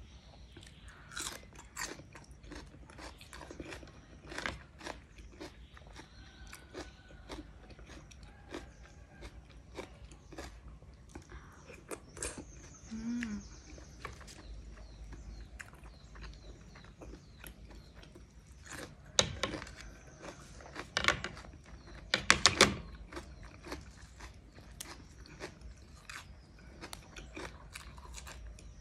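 A person chewing and crunching fresh cucumber and meatballs, with many small crisp bites and mouth clicks. The loudest crunching comes in a cluster about two-thirds of the way through.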